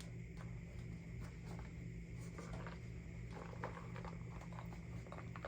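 Faint rustling and scattered light clicks of a small leather handbag being handled and reached into, over a low steady hum.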